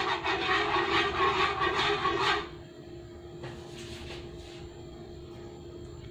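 Hot oil sizzling loudly in a frying pan as metal tongs work the food in it, dying down about two and a half seconds in to a faint hiss. A steady low hum runs underneath.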